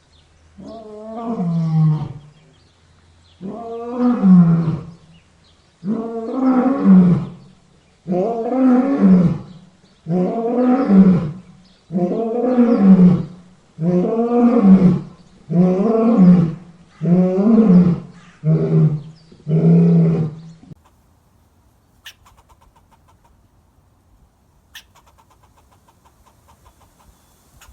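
A large animal giving a long series of deep, pitched calls, about eleven of them at a steady pace of one every second and a half to two seconds. The calls stop about three-quarters of the way through, leaving only faint clicks.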